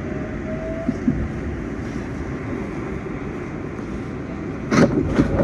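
R188 subway train running at speed, heard from inside the car: a steady low rumble of wheels on rail, with a faint rising whine about half a second in. Near the end the noise turns louder and harsher.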